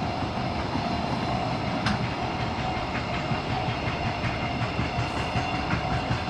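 Freight train rolling past a level crossing: the wagons' wheels rumble steadily and clatter over the rail joints in a regular rhythm that grows more distinct in the second half, with the crossing's warning bell ringing.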